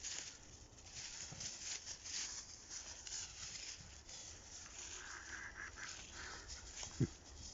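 Wind blowing in irregular gusts, a rushing noise that swells and fades every second or so, with a short low thump near the end.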